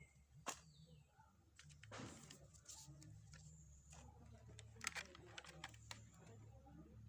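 Faint handling noises from unboxing a smart watch: scattered light clicks and taps, a brief rustle of packaging about two seconds in, and a small cluster of clicks near the end, over a low steady hum.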